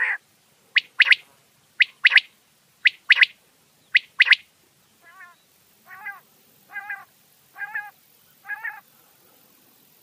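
Quail calling: a run of sharp double-note calls, each pair a short note followed by a stronger one, about once a second. About halfway through, five softer, lower calls follow at a slightly slower pace.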